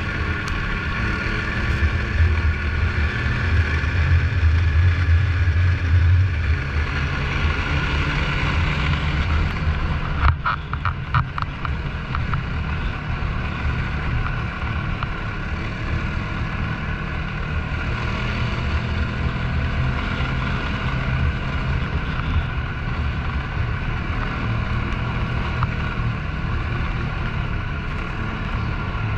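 Snowmobile engine running steadily while riding, with wind on the microphone. It is louder in the first few seconds and eases off briefly about ten seconds in.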